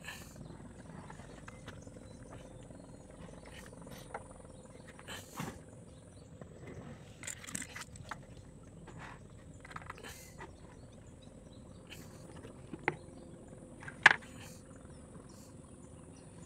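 Scattered short rustles and knocks over a faint steady high-pitched hum, with two sharp loud sounds about thirteen and fourteen seconds in, the second the loudest.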